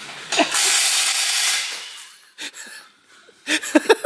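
A loud, steady hiss lasts about a second and a half and then fades out. Near the end comes a short burst of a man's voice.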